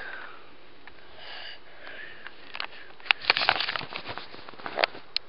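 A quick flurry of small plastic clicks and rattles about three seconds in, with a few single clicks near the end, after a quiet stretch: K'nex coaster pieces being handled.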